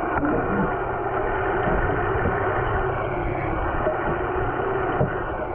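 Steady, muffled underwater noise picked up by a submerged camera, with a boat engine idling as a constant low hum.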